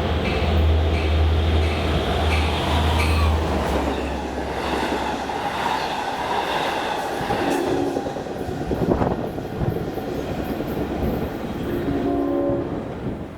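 Long Island Rail Road train passing at speed with a heavy low rumble and regular clicks of wheels over rail joints. Two short horn blasts sound about halfway through and near the end.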